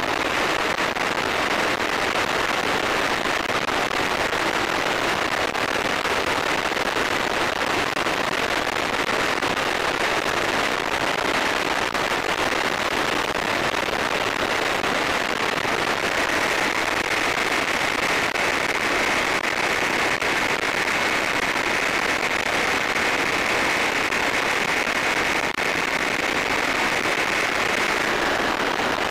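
Hanuman ultralight in flight: steady engine and propeller noise mixed with rough wind rush on the microphone. A thin high whine grows stronger about halfway through.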